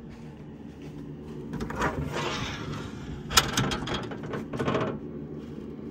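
A metal electrical enclosure's door being unlatched and swung open: a rustle of handling about two seconds in, then a sharp click and a quick run of clicks and rattles, over a steady low hum.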